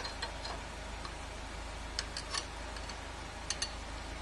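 Faint, light metallic clicks of a center punch and a metal shark fin plate shifting against a motorcycle swing arm as they are lined up: a few at the start, a pair about two seconds in and another about three and a half seconds in.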